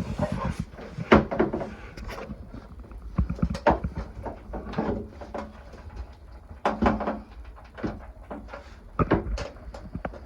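Irregular knocks, clunks and scrapes of hand work with tools and parts, coming in uneven bursts.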